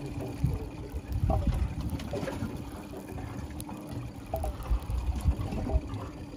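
Water lapping and slapping irregularly against the aluminium hull of a small fishing boat, over a faint steady low hum.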